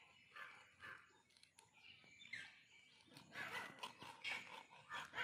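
Faint, scattered short animal calls, growing busier in the second half.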